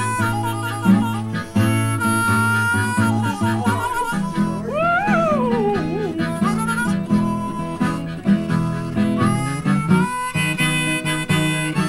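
Music: a harmonica playing over guitar accompaniment, with a wavering, sliding note about halfway through.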